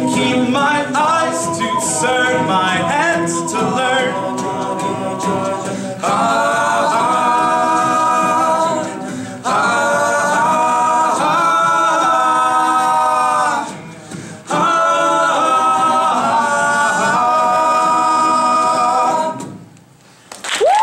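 A cappella vocal group singing the closing chords of a song without words, long held chords broken by two short pauses, the last chord stopping about a second before the end.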